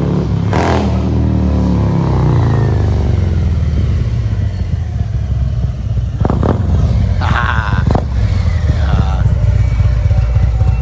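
Harley-Davidson Road Glide's V-twin engine running loud as the motorcycle rides up and pulls in, the revs falling over the first few seconds as it slows, then throbbing at low revs.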